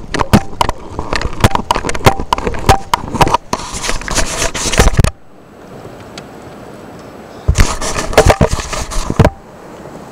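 A rapid, irregular clatter of knocks and rustles for about five seconds, then a short pause and a second spell of knocking before it dies down near the end.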